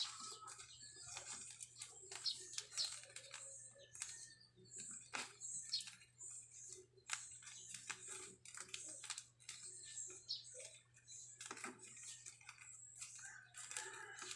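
Faint, irregular clicks and crinkles of a taped paper squishy being handled and squeezed, over a low steady hum.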